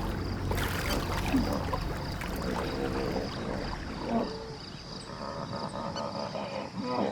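Hippos fighting in water: splashing and churning with grunting, bellowing calls.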